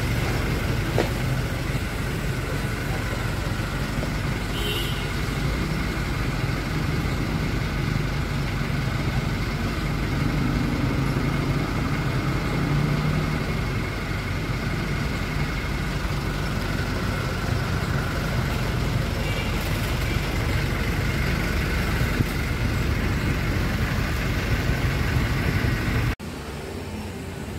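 Steady street traffic noise with a low engine hum. It drops off abruptly near the end.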